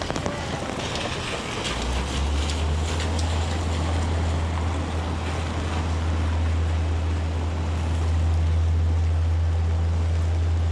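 Heavy rain falling steadily, with scattered sharp drip ticks early on. A steady low rumble from a vehicle or machine sets in about two seconds in and grows louder near the end.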